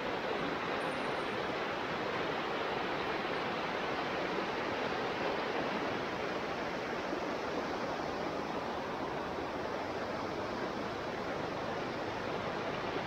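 Floodwater of an overflowing stream rushing over a low bridge and churning against its railings: a steady, unbroken noise of turbulent water.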